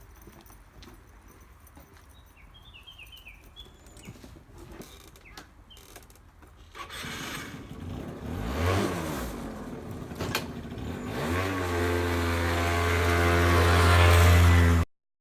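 An engine revving, its pitch sweeping up and down twice, then held at a steady high pitch and growing louder before cutting off abruptly. Before it, a few faint clicks and a brief run of short chirps.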